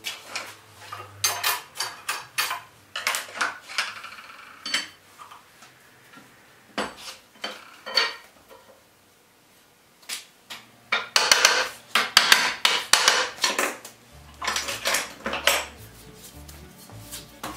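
Metal clinking and clanking in irregular clusters of sharp knocks as a long steel bar and hand tools are handled against metal, busiest in the second half.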